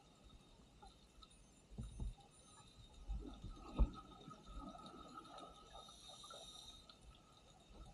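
Faint, muffled underwater sound of a scuba dive, played at double speed: low irregular bubbling rumbles and thumps, with one sharp knock just under four seconds in and a thin hiss near the end.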